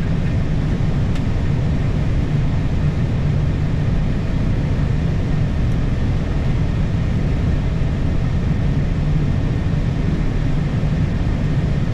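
Steady, low cockpit noise of an Airbus A320 taxiing with its jet engines idling, heard inside the flight deck.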